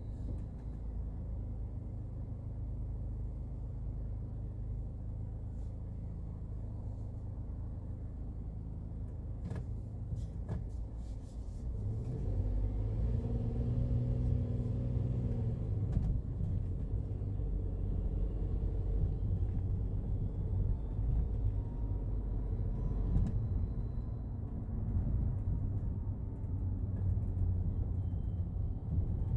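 Daihatsu Hijet Cargo van's engine running with a steady low rumble, getting louder about twelve seconds in with a brief rise in pitch, as when the engine is revved or the van pulls away.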